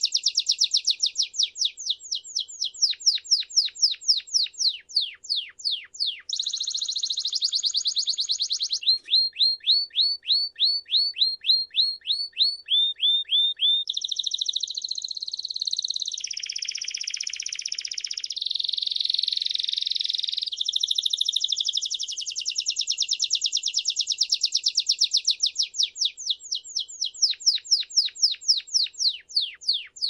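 Belgian canary singing a continuous song of fast trills, with phrases of rapidly repeated falling notes changing every few seconds. A buzzier rolling trill comes in about halfway through, followed by more fast repeated notes.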